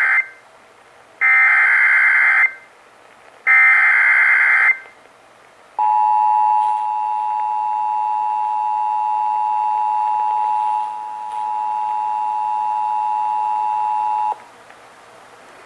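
Emergency Alert System SAME header bursts: three short, raspy digital data bursts about a second apart, the first already under way. They are followed by the EAS two-tone attention signal, a steady dual-pitched tone held for about eight and a half seconds that then cuts off.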